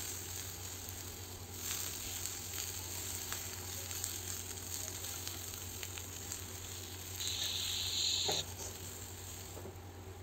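Brinjal slices and tomatoes sizzling as they roast in a frying pan, turned with a wooden spatula with a few light taps. Near the end the sizzle flares louder for about a second, then cuts off suddenly.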